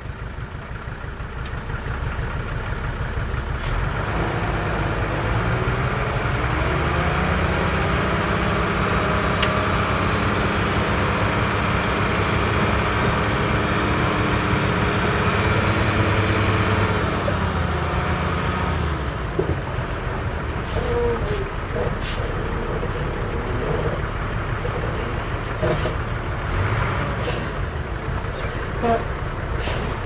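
Heavy earthmoving machine's diesel engine running loud: its note climbs over the first several seconds, holds, then falls away about eighteen seconds in, with metallic clanks and rattles through the last part.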